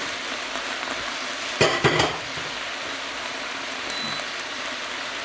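Chopped leeks sizzling steadily in a large stainless-steel stockpot as they are sweated. A short clatter of a few knocks comes about one and a half seconds in.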